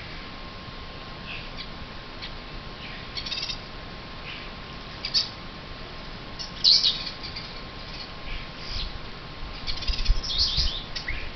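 Bullfinches calling and chirping in short, scattered notes, with louder clusters of calls near the middle and toward the end.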